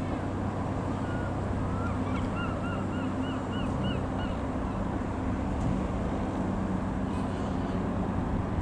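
Steady low engine drone with wind noise. About two seconds in, a bird calls a quick run of about eight short, arched notes lasting roughly two seconds.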